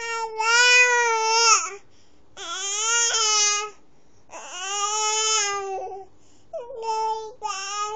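Baby fussing with complaining, drawn-out wails: three long cries of about a second and a half each with short pauses between, then two shorter ones near the end.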